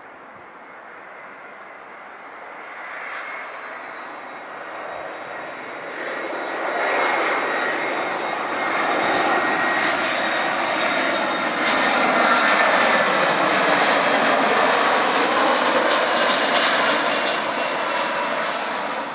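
Jet engines of an Airbus A320-family airliner on final approach to land with its gear down, growing louder as it comes in low overhead. The whine and rush are loudest for several seconds in the second half, then begin to fade as it passes.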